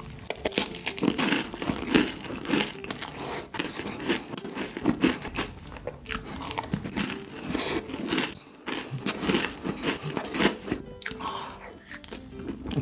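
Close-miked biting and chewing of chocolate: crunchy bites and wet mouth clicks in a quick, irregular series, with a brief break about eight and a half seconds in.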